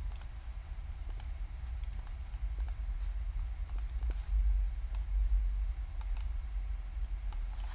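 Computer mouse and keyboard clicks, scattered singly and in pairs about once a second, over a steady low hum.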